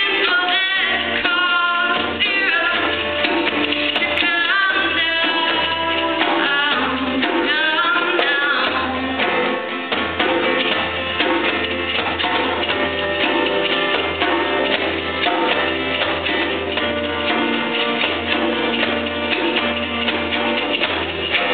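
Live band playing an indie rock cover, with a singer over guitar and percussion; the voice stands out over the first nine seconds or so, after which the instruments carry on.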